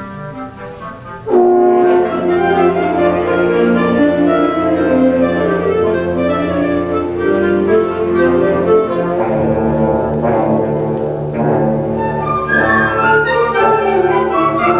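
Concert band of woodwinds, brass and percussion playing: a soft passage gives way, a little over a second in, to a sudden loud full-band entry led by the brass. A deeper bass line joins at about nine seconds, with short sharp accents near the end.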